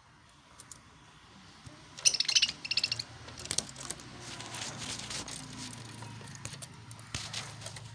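Lovebirds chirping: a loud burst of rapid, high chirps about two seconds in, then scattered softer chirps and clicks over a low steady hum.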